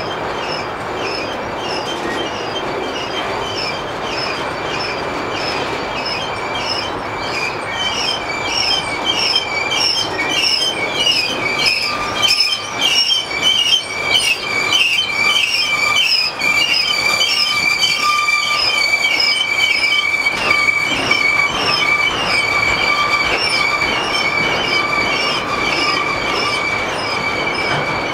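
Empty autorack cars of a freight train rolling slowly past, the steel wheels squealing with a steady high pitch over the rumble and clicking of the trucks. The squeal grows louder about a third of the way in and stays strong.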